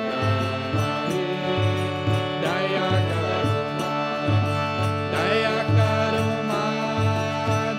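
Kirtan, devotional Hindu chant music: a sustained droning accompaniment over a steady low drum beat, with sung phrases.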